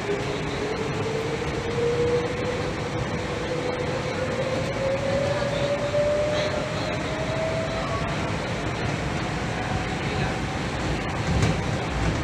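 Inside a KL Monorail four-coach train running on its elevated beam: a steady rumble of the rubber-tyred train under way, with a motor whine rising slowly in pitch as the train picks up speed.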